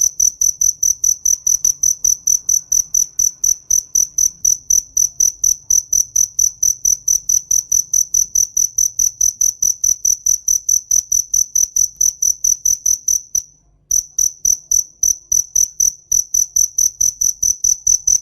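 A cricket chirping: a loud, high-pitched pulse repeated evenly about five times a second. It breaks off for about half a second roughly three-quarters of the way through, then carries on.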